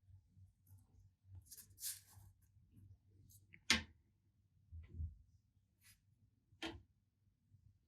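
Scattered light clicks and taps of small parts or tools being handled, with a short scrape about two seconds in and two sharper clicks, the louder one about halfway through and another near the end.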